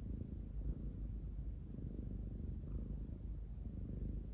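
Domestic cat purring close to the microphone, a steady low rumble.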